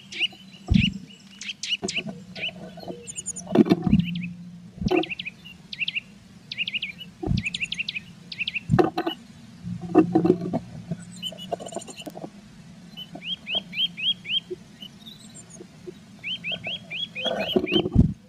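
Blue tits giving quick series of short, high chirps, mixed with sharp knocks and scratches of the bird shifting about inside the wooden nest box during incubation.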